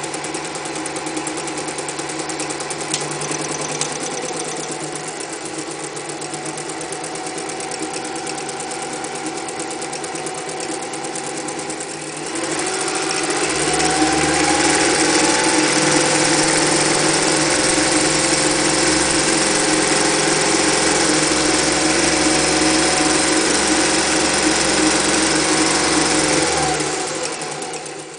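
Singer 201 electric sewing machine running steadily as it stitches. About halfway through it speeds up, getting louder and higher in pitch, runs fast, then slows and stops near the end.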